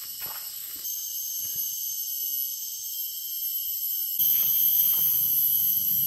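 Rainforest insects keep up a steady, high-pitched chorus of several shrill tones, with a few footsteps on the dirt trail in the first second. A louder low rumble joins about four seconds in.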